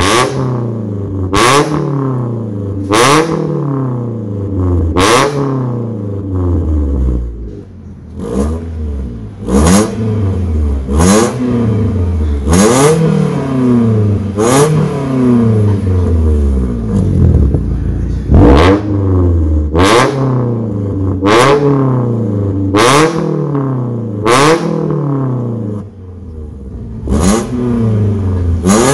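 Mitsubishi Xpander's 1.5-litre four-cylinder engine revved in quick throttle blips through an aftermarket stainless full-system exhaust with a remote-controlled valve. Each blip rises and falls within a second or two, peaking in a short sharp blast, and they repeat steadily with only brief pauses. The first part is heard with the exhaust valve open ("Racing") and the rest with it closed ("Standar").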